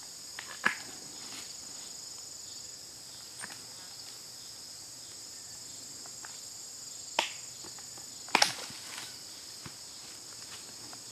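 Cedar branches snapping sharply as they are pruned off the lower trunk, about four cracks, the loudest a quick double crack about eight seconds in, over a steady high-pitched insect chorus.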